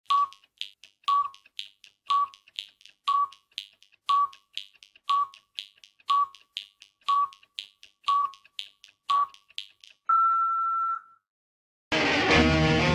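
Film-leader countdown sound effect: a short beep once a second, ten times, over a light clicking about twice a second, ending in a held, slightly higher beep about a second long. Guitar rock music starts near the end.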